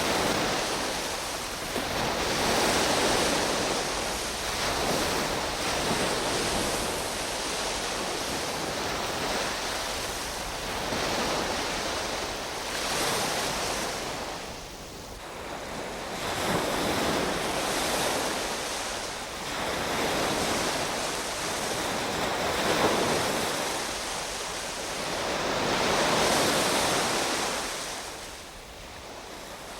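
Sea waves breaking on a shore, the surf swelling and falling back in slow, uneven surges every few seconds.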